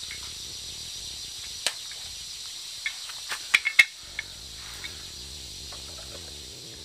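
Steady high-pitched drone of forest insects, with a handful of sharp clicks in the middle, the loudest coming quickly one after another just before four seconds in.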